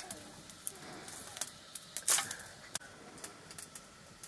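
Wood fire crackling under a cooking pot: scattered sharp snaps and pops at an uneven pace, with one louder crackle about two seconds in.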